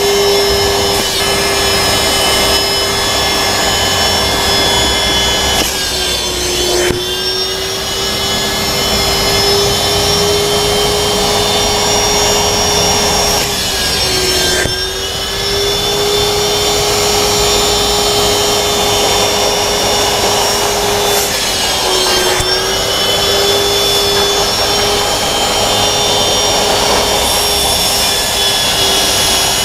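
Wet-and-dry vacuum cleaner running steadily with its upholstery nozzle dragged over a damp fabric car seat, sucking up moisture and dirt, the nozzle scraping on the cloth. The motor's whine dips briefly in pitch three times.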